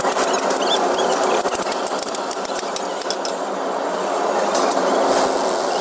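Steel leaf-spring leaves clinking and clattering against each other and the press jig as they are handled, a quick run of light metallic clicks in the first few seconds, over a steady workshop machine noise.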